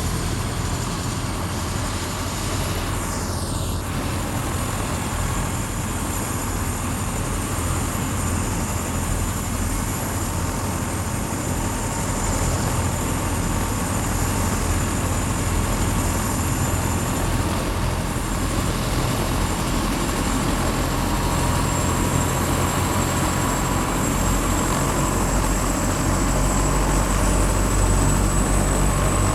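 Helicopter running through take-off: a dense, steady low drone with a thin steady whine above it, growing a little louder in the last few seconds.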